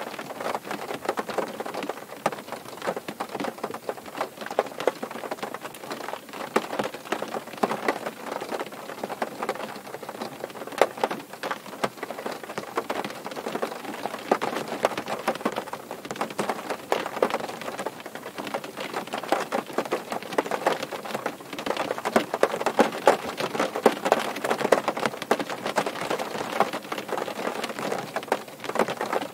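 Rain falling on a car, a dense, irregular patter of drops striking the body and glass, growing a little louder in the second half.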